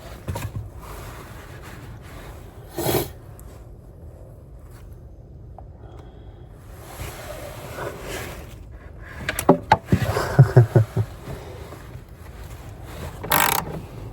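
Hands working on parts under a car dashboard: scrapes and rustling, and a quick run of sharp clicks and knocks about ten seconds in.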